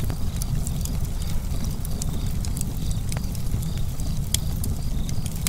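Log fire crackling: irregular sharp pops and snaps over a steady low rumble of flames.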